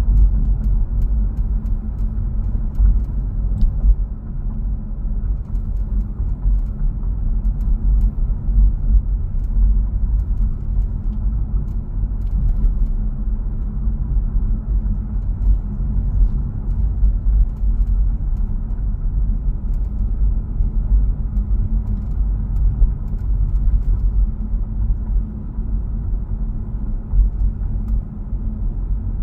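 Steady low road rumble inside a Lincoln MKZ Hybrid's cabin, with faint, irregular small clicks scattered through it. The clicks are the constant clicking/creaking around the B-pillar whose cause the owner has not found, though he suspects the weather stripping.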